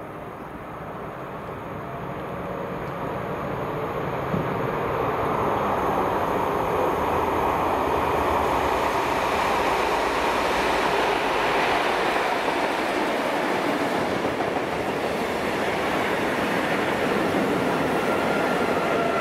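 Diesel locomotives MX 1029 and 1831 hauling a cement train through a station, growing louder over the first six seconds or so as they approach. The loaded tank wagons then rumble steadily past on the rails.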